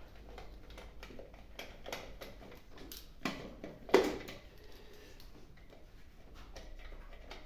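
A few light clicks and knocks of handling, the sharpest about four seconds in; no engine is running.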